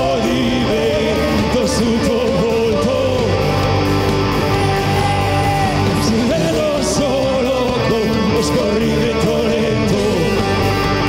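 Rock band playing live, with electric guitar, bass guitar and drums, and a voice singing a wavering melody over them.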